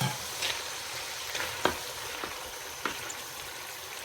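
Chicken pieces sizzling in hot oil and tomato-onion masala over a high flame, a steady hiss. A utensil clicks and knocks against the pan several times as the chicken is stirred.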